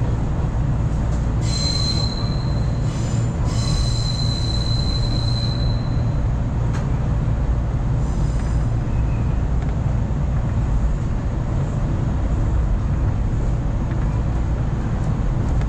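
Running noise inside a former JR West 413-series electric train carriage, a steady low rumble of wheels on rail. A high wheel squeal rings out twice in the first few seconds, the second time longer.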